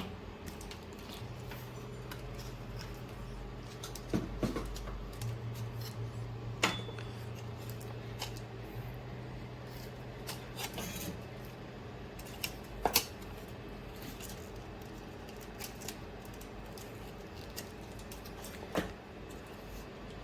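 Scattered sharp clicks and light metal taps of small tools and parts being handled on a repair bench, over a low steady hum.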